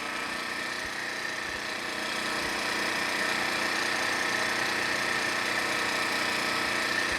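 Harbor Freight Predator 1400 inverter generator's small single-cylinder engine running steadily in eco mode at about 3600 RPM, getting a little louder over the first few seconds.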